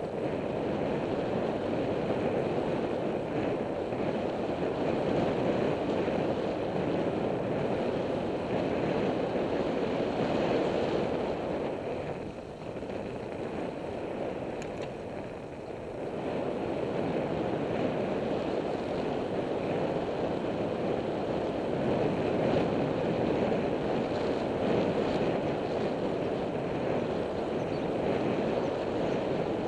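Wind rushing over the microphone with road noise from a moving bicycle, a steady rushing that eases for a few seconds about halfway through and then picks up again.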